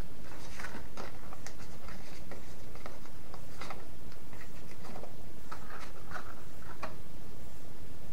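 Cardstock pieces of a paper gift box being handled and pressed together on a craft mat: scattered light taps, clicks and paper rustles.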